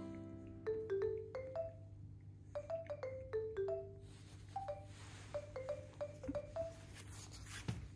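Light background music: a melody of short, struck, quickly decaying notes in a mallet-percussion style.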